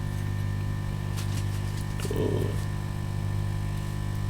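Steady electrical mains hum on the workbench, with a few faint clicks and a brief low sound about two seconds in.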